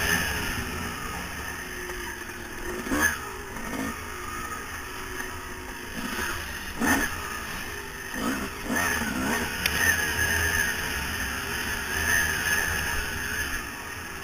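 2000 Yamaha YZ250's two-stroke single-cylinder engine revving up and down as the bike is ridden hard over dirt trail. A few sharp knocks about three, seven and eight and a half seconds in.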